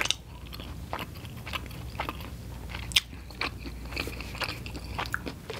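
Close-miked mouth sounds of a person chewing food, with irregular wet clicks and smacks.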